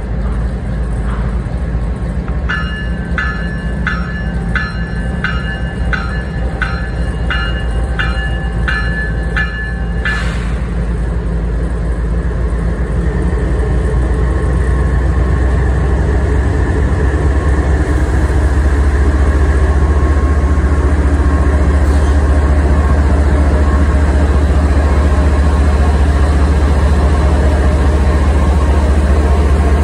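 Canadian Pacific GE ES44AC diesel locomotive passing close by: its horn sounds a chord for about seven seconds, starting a few seconds in. Then the deep rumble of the diesel engines grows louder as the locomotives go by.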